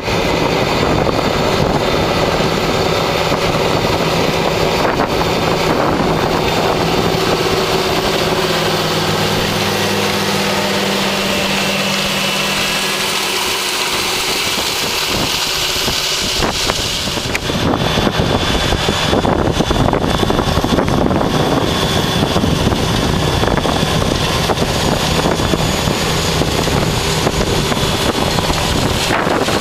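Large John Deere tractor's diesel engine running steadily under load as it pulls a Horsch Pronto 8 DC seed drill through tilled soil, mixed with the drill's running noise. The sound changes abruptly a little over halfway through.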